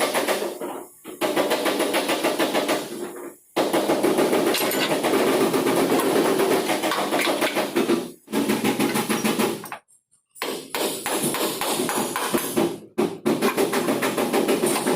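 Rapid repeated hammering on metal in long runs, stopping abruptly and starting again several times, typical of panel-beating work on a truck's body.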